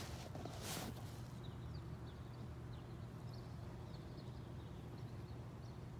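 Quiet outdoor background: a steady low hum, two brief rushes of noise in the first second, then many faint, short high chirps.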